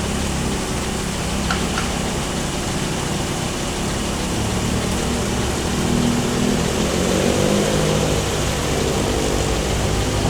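Hitachi 138 hydraulic excavator's diesel engine running, the revs and level rising about halfway through, then easing slightly.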